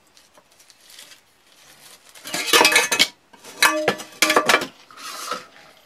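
Metal camping pots and pans clanking together as they are handled, a nested lid-pan lifted off a pot: a run of knocks about two seconds in, then two more, each with a short metallic ring.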